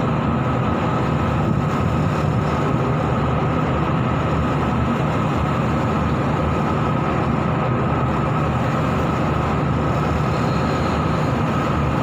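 An offshore tug's engines running steadily while holding a tow, under a continuous rush of wind and rough sea at the open stern deck.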